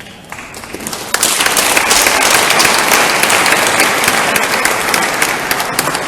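Audience applauding, swelling about a second in, loudest through the middle and tapering off near the end.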